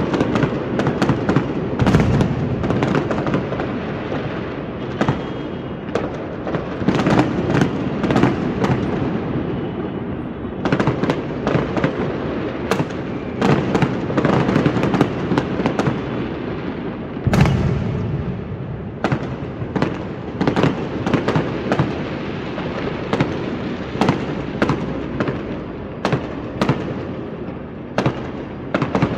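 A dense barrage of fireworks: rapid bangs and crackling over a continuous rumble, with heavier booms about two seconds in and again just past the middle, the reports trailing off in echo.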